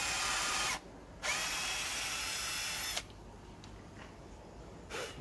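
Cordless drill boring a pilot hole into pallet wood, drilled so that a long screw won't split the board. The motor runs, stops for about half a second, then spins up again and runs for about two seconds before stopping. A short click follows near the end.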